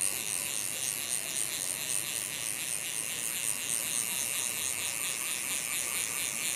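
Fly reel's click-and-pawl ratchet clicking steadily as line is wound onto the reel.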